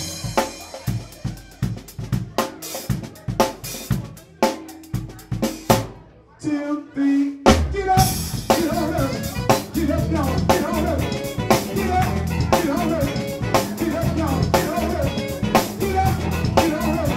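Live funk band: for about six seconds mostly drums with a few bass notes, a brief drop with some single notes, then the full band with Alembic electric bass, guitar and drums comes back in about seven and a half seconds in and plays a dense funk groove.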